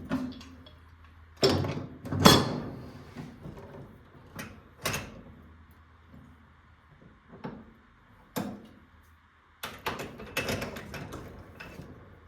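Irregular knocks, clanks and scrapes of hands and tools working on a furnace's parts, the loudest clatters about a second and a half and two seconds in, and a cluster of them near the end.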